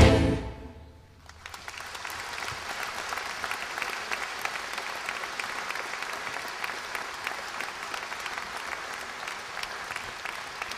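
The last chord of the choir and rock band fades out in the first second, then a concert audience applauds steadily, a dense mass of clapping that holds to the end.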